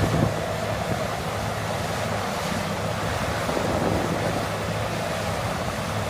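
Steady rushing noise with a low hum underneath, like wind or air noise on the microphone.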